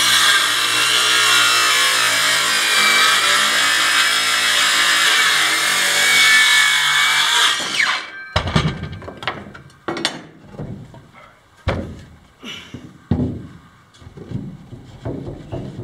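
Small cordless circular saw cutting through a wooden floorboard, its blade running steadily under load, then switched off about eight seconds in and spinning down. After that, a series of wooden knocks and thumps as boards and cut-off pieces are handled on the plank floor.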